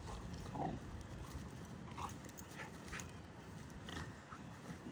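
Two young dogs at rough play, with a few short dog vocal sounds, the clearest about half a second in and more between two and four seconds in.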